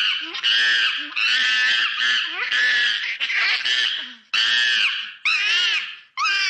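Monkey giving a rapid series of high-pitched calls, about eight in a row, each under a second long; the last couple bend up and down in pitch.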